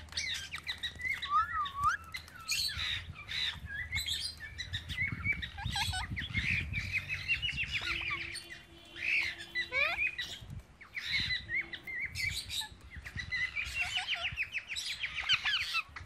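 Ringneck parakeets chirping and chattering in quick, rising and falling calls, with occasional squawks.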